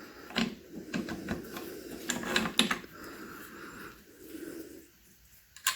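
Light clicks and rattles of small metal hardware being handled as a bolt is pushed through a mower's kill switch housing, with a soft rustle of handling underneath and a sharper click near the end.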